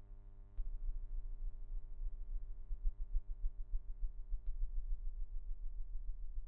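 A low, steady hum with many evenly spaced overtones. It steps up in loudness about half a second in, with a faint click there and another about four and a half seconds in.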